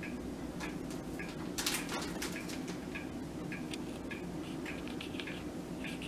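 Crinkly plastic bag being handled and shaken while dried onion flakes are tipped out into a measuring spoon: a run of small crackles and ticks, with a louder crackle about two seconds in, over a steady low hum.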